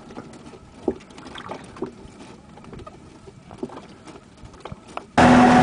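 Faint knocks and handling sounds on a small fishing boat, then about five seconds in a boat engine suddenly comes in loud with a steady drone that carries on.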